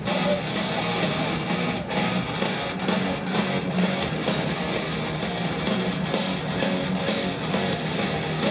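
Heavy metal band playing live, heard from the crowd: electric guitars, bass and drums in an instrumental passage with no vocals.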